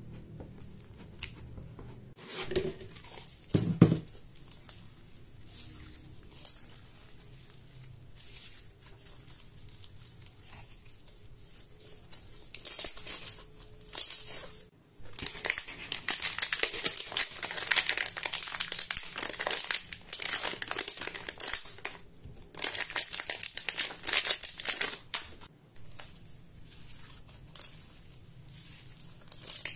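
Slime stirred in a bowl, then kneaded and stretched by hand, giving a steady close-up crackling. It is quieter at first with two soft knocks, and the crackling comes in louder bursts through the second half.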